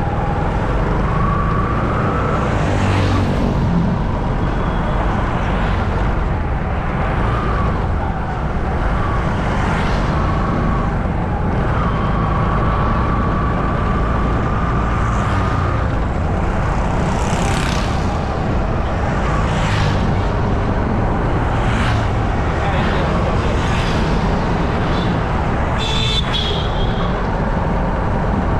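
Street traffic noise heard while moving along a city road: a steady low rumble of engines and wind, with vehicles passing and a few brief higher tones and sharp sounds along the way.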